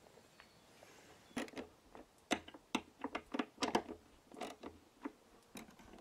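A string of irregular clicks and light knocks, starting about a second and a half in, from the rewired washing-machine stator and its rectifier wiring being handled and fitted onto the plastic tub.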